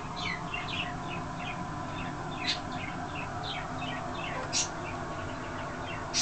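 Swainson's toucan giving a run of short, quiet falling chirps, several a second, with three sharp clicks among them, over a steady low hum.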